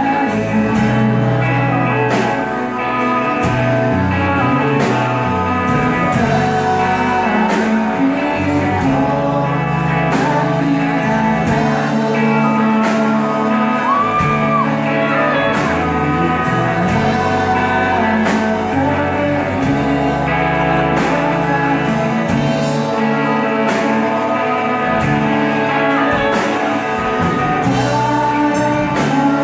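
A rock band playing live: electric guitars, bass and a drum kit under a sung lead vocal, heard from among the audience in a large hall.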